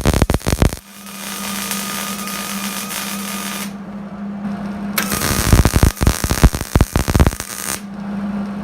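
Electric welding arc on the Land Rover's steel chassis dumb irons, struck in bursts: a brief crackle at the start, a steady hissing run, then about three seconds of dense, irregular crackling. A steady low hum continues through the pauses between welds.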